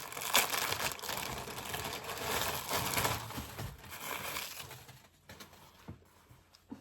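Parcel packaging crinkling and rustling as gym tights are handled and unpacked, dying away after about four to five seconds to a few small clicks.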